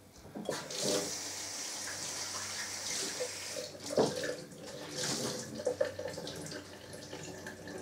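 Water tap running into a sink as a cloth is wetted under it, a steady splashing hiss with a sharp knock about half a second in and another at about four seconds.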